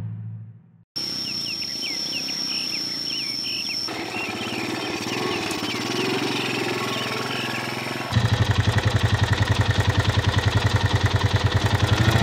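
Short bird chirps and a steady high whine over rural outdoor ambience. About eight seconds in, an old step-through motorcycle's small engine comes in loud and runs with a rapid, even beat.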